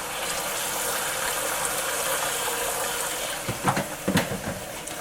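Hot water running steadily from a kitchen faucet into a cup, filling it with soapy water. A few short pitched sounds break in about three and a half seconds in.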